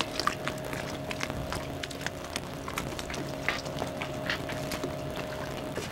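Water splashing and spattering in many small irregular bursts over a steady motor hum, which cuts off near the end.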